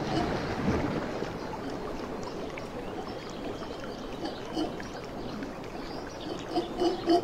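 Steady rushing background noise, then near the end a mantled howler monkey breaks into a run of deep, rhythmic grunts, about four a second, the usual lead-in to a howl.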